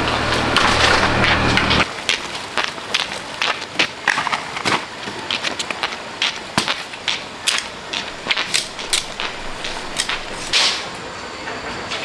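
A small engine running steadily cuts off about two seconds in. It is followed by a long run of irregular cracking and snapping clicks.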